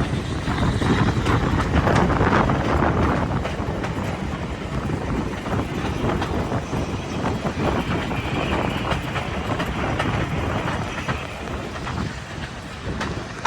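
Heritage railway train running along the track, with a steady rumble and irregular clicks of the wheels over the rail. It is loudest in the first few seconds.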